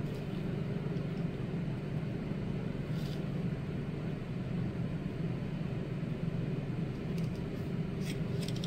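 A steady low mechanical hum, with faint small ticks about three seconds in and again near the end.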